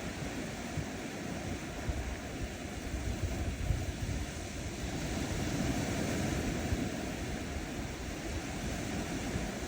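Small ocean waves washing steadily onto a sandy beach shore, with a low gusty rumble of wind on the microphone.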